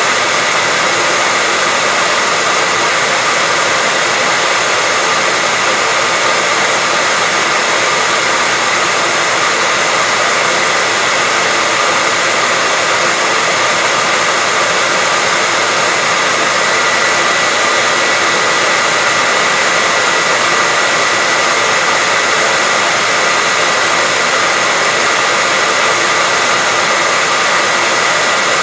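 Hair dryer running steadily: a constant rush of blown air with a steady high whine over it, unchanging throughout.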